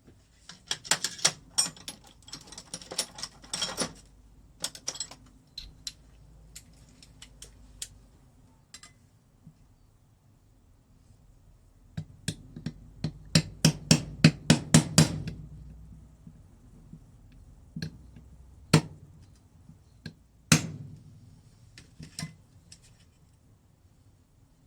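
Hammer blows on a socket used as a drift, knocking a new water pump seal into an Aprilia RX50 engine casing. There is a quick run of blows in the first few seconds, another run of about ten blows around the middle, then a few single taps.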